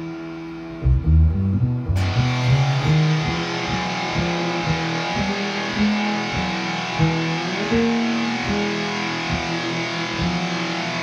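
Electric guitar and bass guitar playing improvised instrumental music. A held note fades, plucked low notes start about a second in, and a dense, noisy layer comes in suddenly about two seconds in over repeated picked notes.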